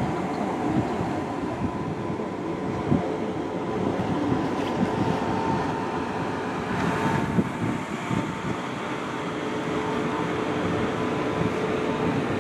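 NSB Class 73 electric multiple unit passing close by, a steady electrical whine with several fixed tones over the running noise of its wheels and bogies.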